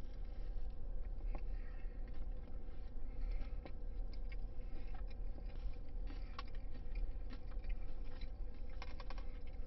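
A man chewing a mouthful of crispy, hand-breaded fried chicken sandwich, with scattered faint crunching clicks over a steady low hum.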